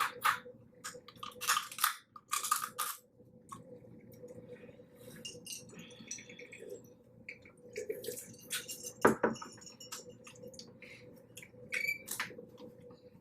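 Close-up eating of a seafood boil: wet squishing, smacking and sharp clicks of crab shell being broken and picked apart, in uneven clusters with one sharp, louder crack about nine seconds in.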